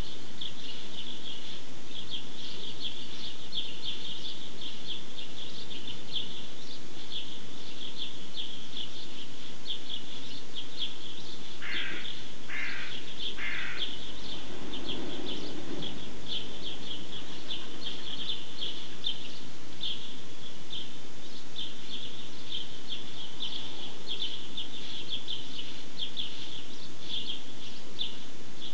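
Many small birds chirping continuously in a dense, high chatter. About twelve seconds in, three separate lower calls come one after another.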